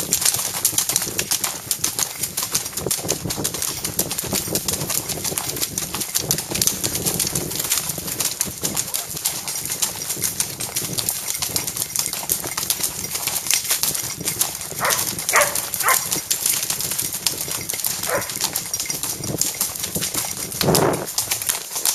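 Horses walking on a trail: a steady, dense clatter of hooves and jostling tack. A few short calls are heard in the second half.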